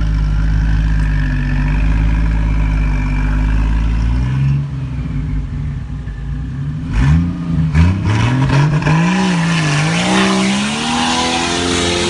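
Off-road 4x4's engine running steadily for a few seconds, then revved hard, its pitch rising and falling several times.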